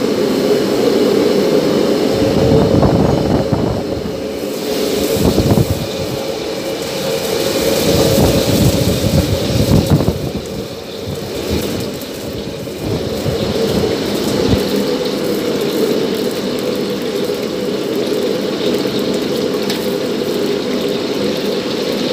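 Steady roar of a commercial kitchen's gas range and exhaust hood. Over it, during the first half, irregular sizzling and clatter as tilapia is fried in a pan.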